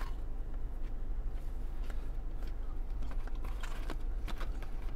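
Mouth noises of eating and a paper fry carton being handled, with a few faint rustles and clicks in the second half, over the car's steady low hum.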